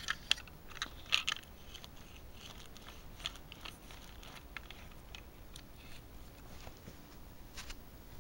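Small die-cast model pickup being handled and set down on a paper-covered surface: a few sharp clicks and paper crackling in the first second and a half, then faint scattered ticks and rustles as it is adjusted.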